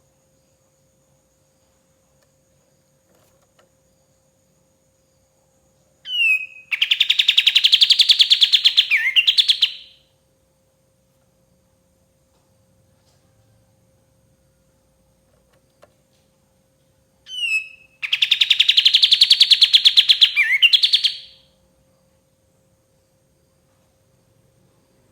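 Kapas tembak, a bulbul, singing two phrases about ten seconds apart: each opens with a quick falling note and runs into a loud, fast trill of about three seconds that ends in a couple of sharp notes. A faint steady hum lies underneath.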